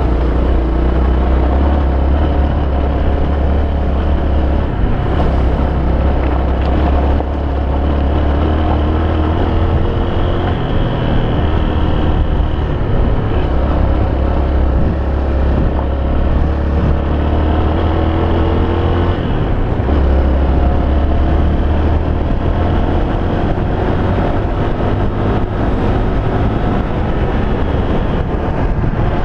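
Honda XR250 Baja's single-cylinder four-stroke engine running under way, its pitch climbing again and again as it pulls through the gears, over a heavy wind rumble on the microphone.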